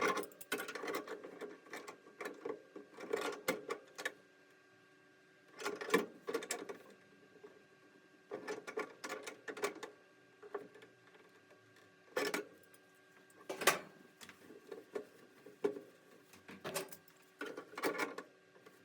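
Channel-lock pliers clicking and rattling against the threaded hose connections as they are snugged up, in short bursts of clicks with pauses between.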